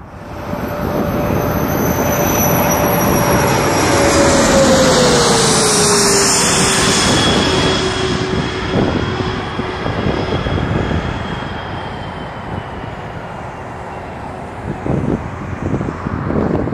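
Jet aircraft passing close by. Its engine whine and hum slide down in pitch as it goes past about five seconds in, then carry on as a lower, fading jet noise. Near the end, wind gusts buffet the microphone.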